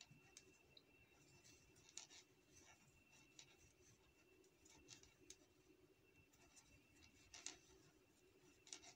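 Near silence: faint rustles and light scrapes of a crochet hook pulling 3 mm macrame cord through double crochet stitches, over a faint steady hum. A few scrapes stand out about two seconds in and near the end.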